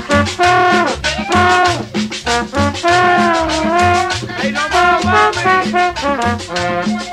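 Cumbia dance music played loud over a sound system: a melody over a steady, evenly repeating bass beat.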